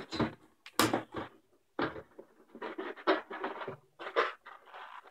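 Small yellow latex modelling balloon squeaking and rubbing under the fingers as it is squeezed and worked in the hands, in irregular short bursts, the loudest about a second in.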